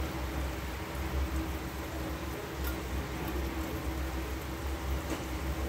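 Food sizzling steadily in a pan, a rain-like crackle, over a constant low hum.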